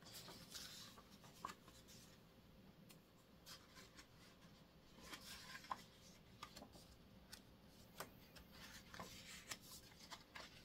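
Near silence, with faint scattered clicks and soft rustles from a picture book being held and handled.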